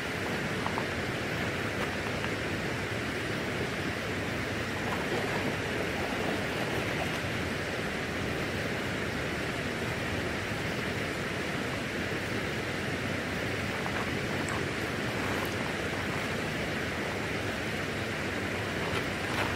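Steady rush of water pouring through a dam's tailrace: an even, unbroken hiss.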